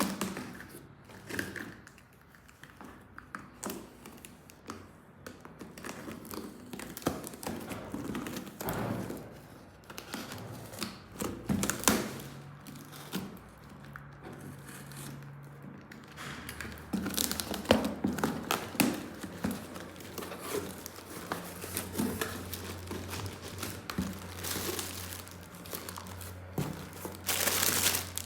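Plastic packaging crinkling and tearing as a toy set is unboxed, with scattered taps and clicks of plastic parts being handled, and a louder rustle near the end.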